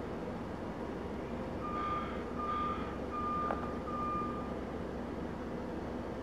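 Four short electronic beeps at one high pitch, evenly paced like a reversing alarm, with a sharp click among them, over a steady background rumble.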